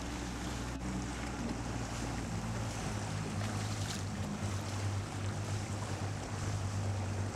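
Wind on the microphone and water washing past, heard from a boat at sea, with a low steady hum underneath.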